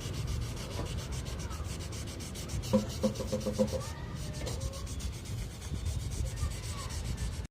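Sandpaper rubbing back and forth over touch-up paint on a car's body panel in quick, steady strokes, levelling the filled scratch flush with the surrounding paint.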